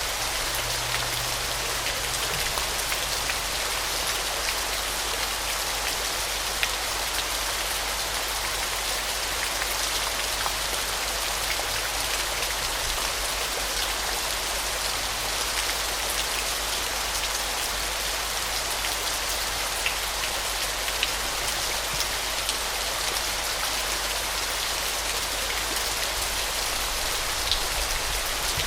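Waterfall: a steady, even hiss of falling and splashing water, with scattered sharper drip-like ticks.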